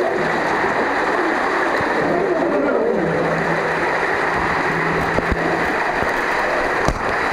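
Water rushing through an enclosed tube water slide as riders slide down it, a loud steady rush, with two sharp knocks near the end.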